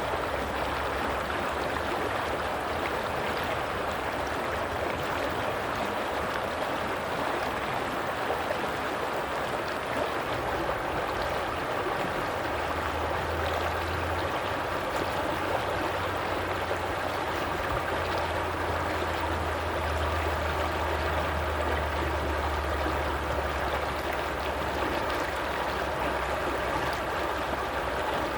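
Stream water flowing and splashing steadily. A low rumble joins underneath about halfway through and fades near the end.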